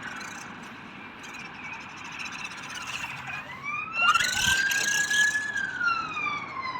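RC car's high-torque motor whining, its pitch rising about three and a half seconds in, holding, then falling near the end, with a burst of rough noise around four to five seconds in.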